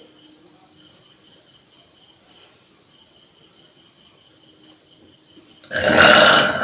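Insects chirping in a steady, pulsing pattern in the background; then, near the end, a woman lets out a loud, drawn-out deliberate burp.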